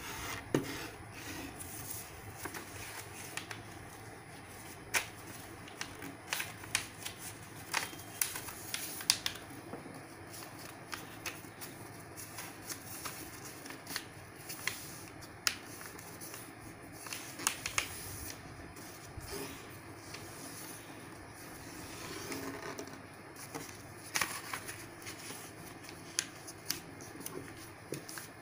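A sheet of printer paper being folded and creased by hand against a wooden tabletop: irregular crinkling with many short, sharp crackles and clicks as the folds are pressed flat.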